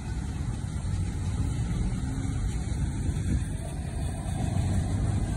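Floodwater rushing past a low-level road bridge, a steady low roar, with a truck crossing the bridge.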